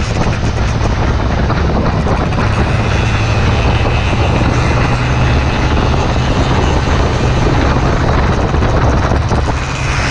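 Motorcycle riding at speed: a steady rush of wind over the microphone, with the riding bike's single-cylinder four-stroke Yamaha Vixion engine droning underneath.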